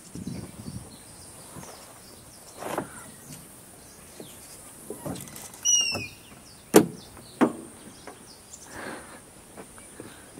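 Metal clunks and knocks from a safari 4x4's pop-up roof hatch and doors being handled, the sharpest two about seven seconds in. A short bird call just before them.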